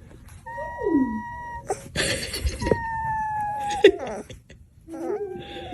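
A dog giving two long, high, whining howls, each held for about a second, the second sinking slightly in pitch. A short noisy burst comes between them.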